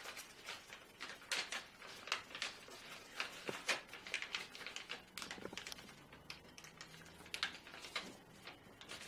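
Origami paper crinkling and rustling as it is unfolded and refolded along existing creases by hand, in irregular crisp little clicks and rustles.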